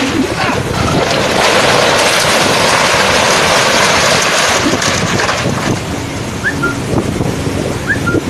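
Cyclone-force wind buffeting the microphone over heavy surf breaking on the shore. The gust is strongest from about a second in until about five seconds in, then eases a little.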